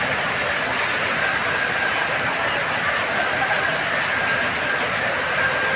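A large fountain's water spouting and cascading over the rim of its basin into the pool, a steady rush.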